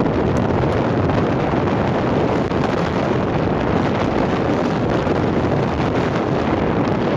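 Freight train running past, a steady loud rumble without breaks.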